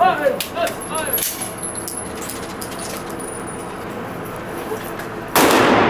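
A few light metallic clinks of brass shell casings being handled, then a sudden loud burst of noise about half a second long near the end.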